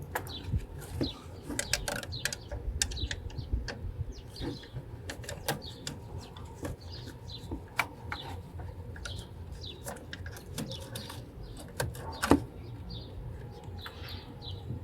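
Scattered sharp clicks and knocks of hands working a plastic wiring connector loose from its socket, a louder snap about twelve seconds in. Birds chirp in the background.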